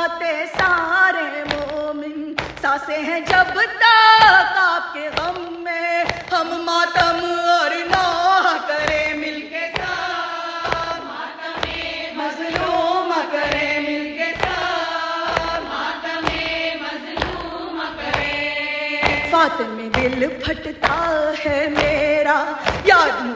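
An Urdu nouha, a Shia lament for Fatima Zahra, sung over a steady beat of about two strikes a second.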